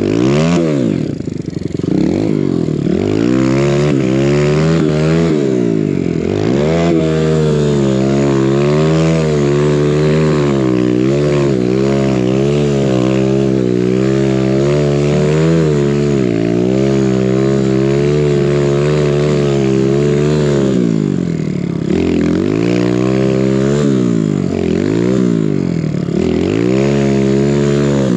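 Kawasaki KLX140RF dirt bike built to 170cc with a big-bore kit and BBR exhaust, its single-cylinder four-stroke engine working hard in deep snow. The revs rise and fall in quick blips at first, hold high and wavering through the middle, then rise and fall again near the end.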